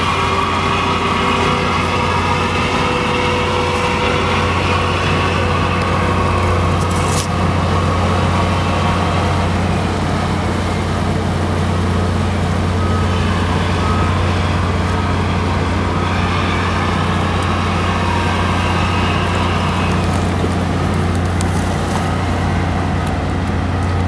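Tugboat diesel engines running under power, a steady low drone with a broad rush of noise over it.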